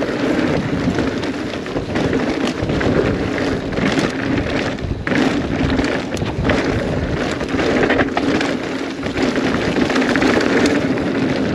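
Mountain bike descending a fast dirt trail: a steady rush of tyres over dirt and gravel and wind on the microphone, with many small clicks and rattles from the bike.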